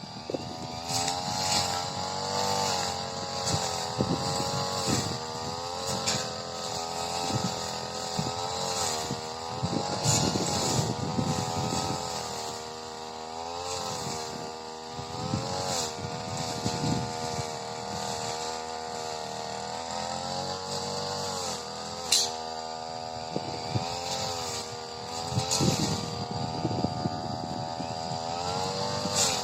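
Supra SPR328 brush cutter's two-stroke engine running at high revs, its pitch dipping again and again as the blade bogs into thick, tall grass. A few sharp ticks are heard along the way.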